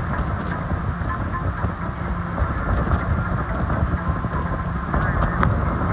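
Wind buffeting the microphone over the steady drone of a speedboat's engines running at speed across open water.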